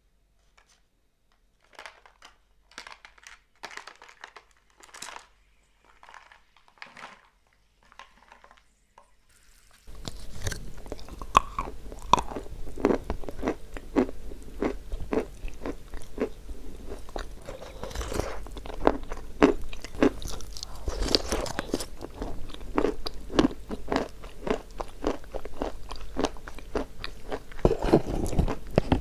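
A person biting and chewing chalk close to the microphone, crisp crunches. A few spaced, quieter bites come first; about ten seconds in it turns louder and steady, with a low hum underneath.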